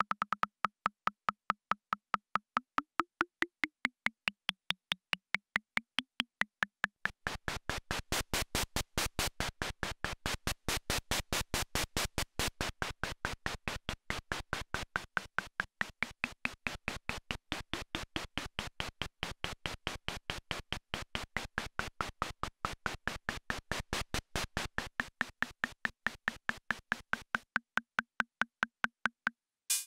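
Akai Rhythm Wolf analog drum machine playing a fast repeating pattern of short pitched hits, about four or five a second, their pitch shifting up and down as its knobs are tweaked. About seven seconds in, a denser, hissier layer of rapid hits joins, dropping out again near the end.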